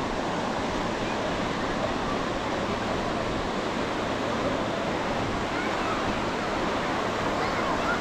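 Steady ocean surf with the mixed voices and occasional calls of a crowded beach.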